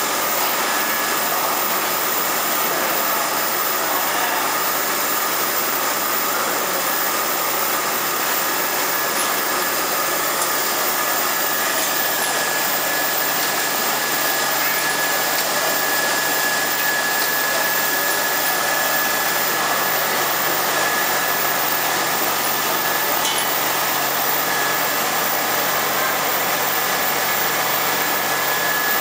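Vial washing-and-drying tunnel line running: a steady, even machine noise with a thin high whine, as the mesh conveyor carries glass vials through.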